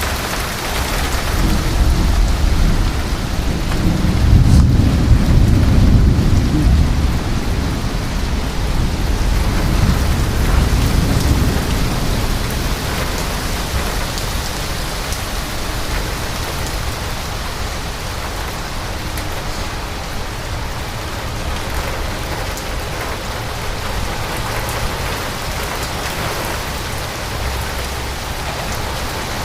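Heavy thunderstorm rain pouring steadily, with a long low rumble of thunder that swells in the first few seconds and dies away about twelve seconds in.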